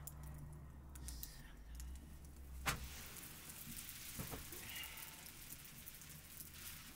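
Wood fire crackling faintly under an iron griddle as flatbread is cooked, with one sharp crack or tap a little under halfway through and a low rumble in the first few seconds.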